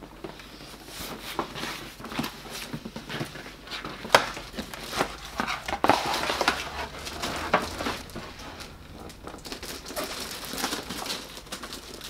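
Cardboard box and plastic wrapping being handled: irregular rustling and crinkling as a shrink-wrapped figure box is pulled out of a shipping box, with scattered knocks, the sharpest about four seconds in.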